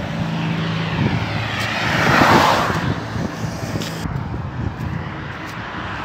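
Highway traffic passing close by: a vehicle's tyre and engine noise swells to a peak about two seconds in, then fades away. A low engine hum runs under the first second.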